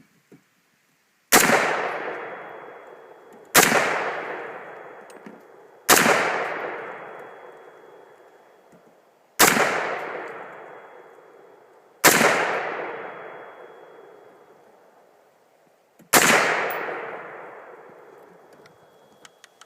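Six single rifle shots from a Bushmaster ACR in .223, fired one at a time at uneven intervals of about two to four seconds, each with a long echo dying away. The sixth shot empties the rifle.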